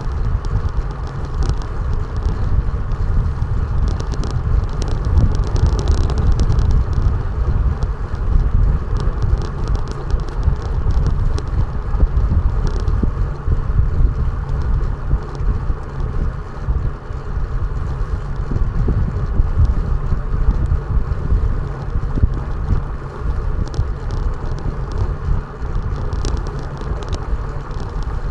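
Steady wind buffeting on a body-mounted action camera's microphone over the low rumble of riding on the road, with scattered light crackles throughout.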